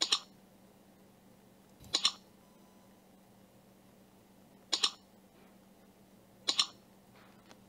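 Computer mouse click sound effects: four clicks roughly two seconds apart, each a quick double tick, over a faint steady hum.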